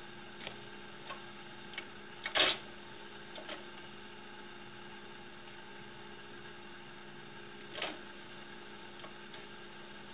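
Steady low hiss and hum of room tone, broken by a few light taps and clicks and a louder short knock about two and a half seconds in, with another soft knock near eight seconds.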